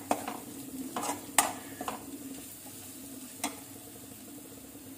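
Steel spoon scraping and tapping against a metal kadhai as ground spices are stirred and roasted in frying onion paste, over a faint sizzle. The strokes stop about two seconds in, with one more tap at about three and a half seconds.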